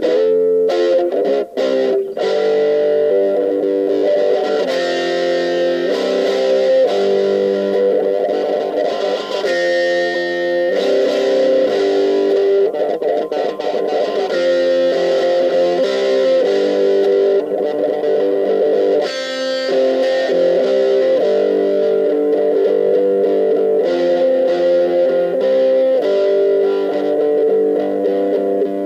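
Electric guitar with an overdriven 'brown sound' tone playing boogie riffs: ringing chords and held notes that change every second or two.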